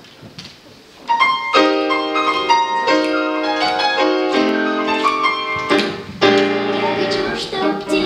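Piano introduction to a choir song, starting about a second in after a moment of faint room hiss and playing a melody of struck, sustained notes.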